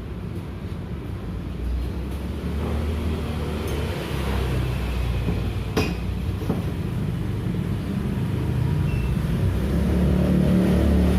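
Steady low rumble like engine noise, growing slightly louder toward the end, with one sharp click about six seconds in.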